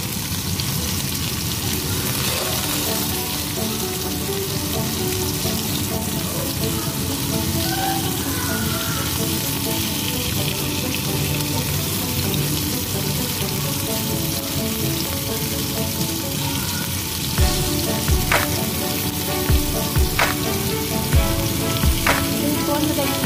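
Prawn and chicken skewers sizzling steadily in hot oil in a frying pan. In the last few seconds, a series of sharp clacks as tongs knock against the pan and skewers while turning them.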